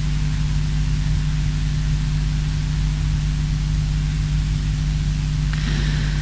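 Steady electrical mains hum with an even hiss, from a sound system's live microphone channel, with no voice on it yet. A little extra hiss comes in near the end as the microphone is raised to the mouth.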